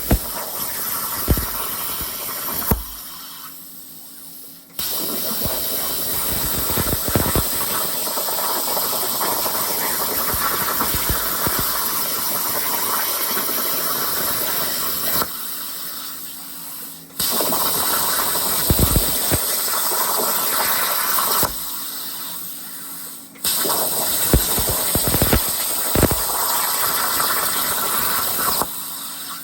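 CNC plasma cutter's torch arc hissing steadily while it cuts. It shuts off four times for about two seconds, leaving a faint steady hum, then fires up again for the next cut.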